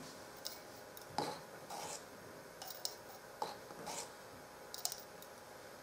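A metal spatula scooping copper carbonate powder from a plastic jar and tipping it into a glass test tube: light scattered clicks and scrapes, about one a second.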